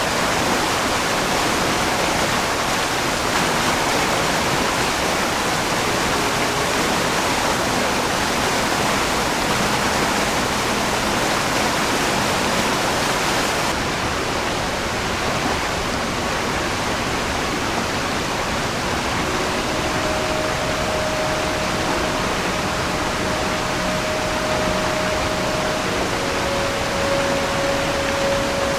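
Rushing water of the Oirase mountain stream, a steady, even noise of flowing water. About two-thirds in, a faint steady tone sounds over it.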